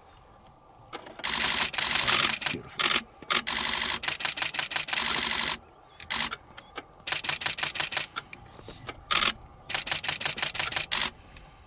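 Camera shutters firing in rapid bursts: several runs of fast clicking of about a second each, some overlapping as more than one camera shoots at once, with short pauses between them.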